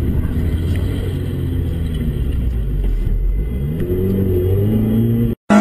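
Car engine and road noise heard from inside the cabin at speed, a heavy low rumble, with the engine revs climbing in the second half. The sound cuts off abruptly near the end.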